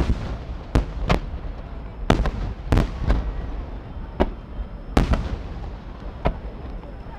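Aerial firework shells bursting in a rapid, irregular series of about a dozen sharp bangs, with a low rumble between them.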